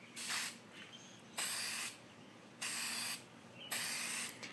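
Aerosol spray can of primer hissing in four short bursts of about half a second each, with short pauses between; the first burst is fainter.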